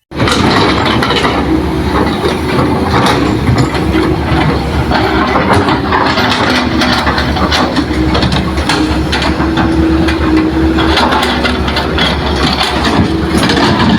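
Diesel engine of a Hitachi excavator running steadily under load while digging and loading soil, with many sharp knocks and clatter throughout. It starts abruptly at the beginning.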